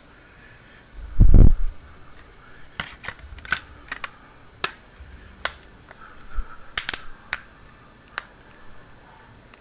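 A low thump about a second in, then a string of sharp, irregular small clicks and taps as a smartphone and repair tools are handled during reassembly.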